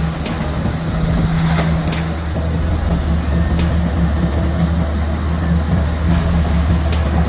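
Large diesel engine of heavy machinery running steadily under load, a deep drone with a few short metallic clanks.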